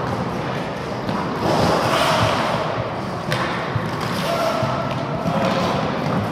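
Roller hockey in play: a steady rumble of skate wheels on the rink floor with repeated sharp knocks of sticks and ball.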